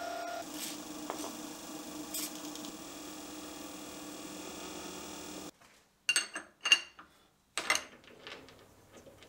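Milling machine spindle running steadily as it cuts a metal cylinder for a six-barrel cluster, stopping suddenly about halfway through. Three sharp metallic clinks follow, with a few fainter ticks after them.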